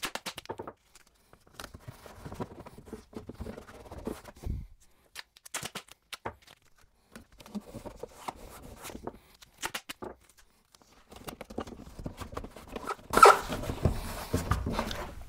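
Foil tape being peeled, crinkled and pressed onto a cracked plastic bumper: a string of faint crackles, rustles and ticks, with louder handling near the end.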